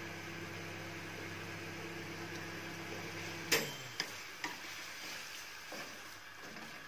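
Instant noodles and ham sizzling faintly in a frying pan under a steady low electrical hum; about halfway the hum cuts off with a sharp clack, then wooden chopsticks click a few times against the pan as the noodles are stirred.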